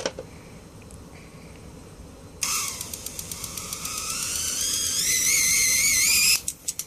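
High-voltage arc drawn from a Sharp CRT TV's flyback transformer lead: starting about two and a half seconds in, a crackling sizzle with a high, wavering whine that grows louder, cutting off suddenly near the end and followed by a few sharp snaps.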